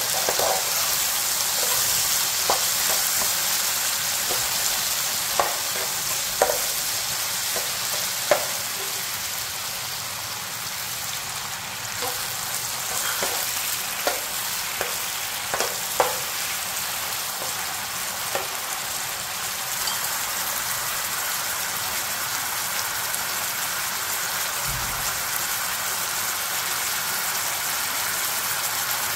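Pork and garlic sizzling in oil in a nonstick frying pan, with a metal slotted spatula clicking and scraping against the pan as it stirs. The taps come every second or two through the first half, then the steady sizzle goes on mostly alone.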